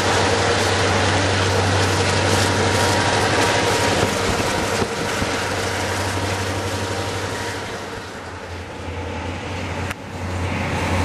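South Shore Freight EMD GP38-2 diesel locomotives, whose 16-cylinder two-stroke engines make a steady low drone, pass close by with wheel and rail noise. The sound fades as they move on. Near the end it breaks off abruptly into a more distant engine rumble.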